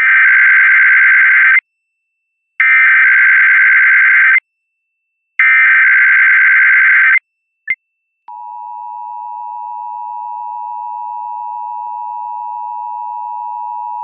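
Emergency Alert System SAME header: three identical raspy digital data bursts, each about a second and a half long with a second's pause between. About eight seconds in, after a brief blip, the steady two-tone EAS attention signal (853 and 960 Hz together) begins and holds.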